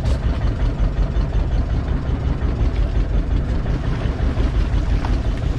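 Small fishing boat's engine idling with a steady low rumble.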